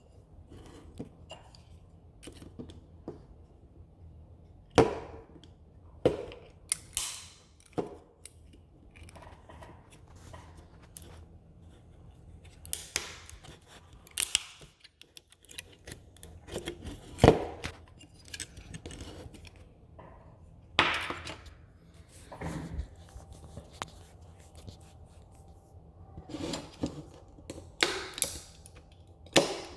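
3D-printed plastic support material being snapped and pried off a printed part: irregular sharp cracks and clicks, the loudest about five, seventeen and twenty-one seconds in.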